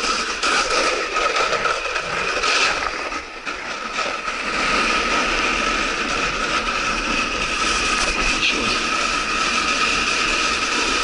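Skis scraping and rattling over icy spring slush while snowkiting, with wind rushing past and a steady high whistle. It eases briefly about three seconds in.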